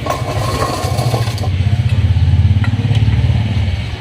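Motorcycle engine running close by with a low, rapidly pulsing note, getting louder to a peak about halfway through and then fading away.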